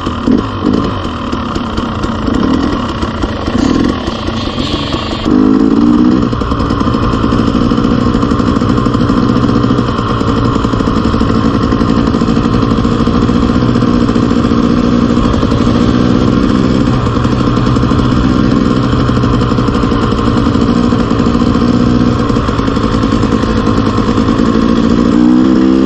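Dirt bike engine running, idling at first, then revving up about five seconds in and running steadily from there.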